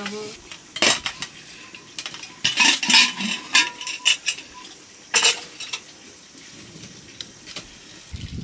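Metal dishes and utensils clinking and scraping in scattered knocks, with louder clatters about a second in, around three seconds in and about five seconds in, and a faint ringing of metal under the middle ones.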